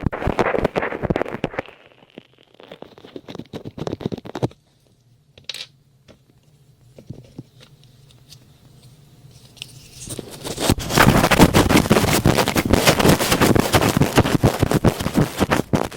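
Close-up scratching and rubbing directly on an ASMR microphone, ear-cleaning and massage sounds, crackly and dense. It comes in bursts, goes quieter for several seconds in the middle, then runs on as continuous loud scratching for the last five seconds or so.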